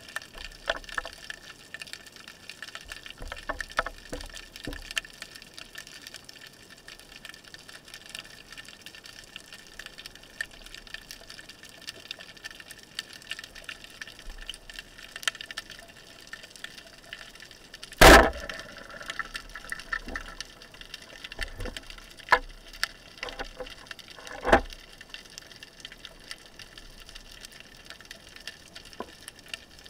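Underwater ambience of faint crackling and hiss with scattered small clicks. About 18 seconds in, a band-powered speargun fires with one loud sharp crack, and a few smaller sharp clicks follow some seconds later.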